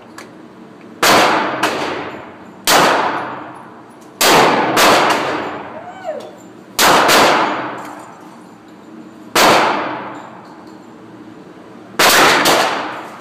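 Handgun shots fired at irregular intervals, about ten in all, some in quick pairs, each with a long echoing decay.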